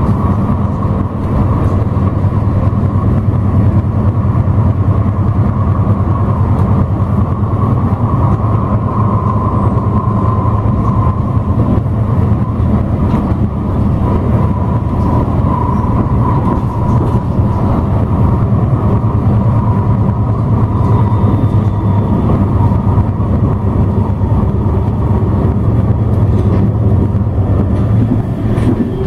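Bombardier Incentro tram running along the line, heard from inside the passenger saloon: a steady low rumble of wheels on rail with a thin whine that sinks slightly in pitch.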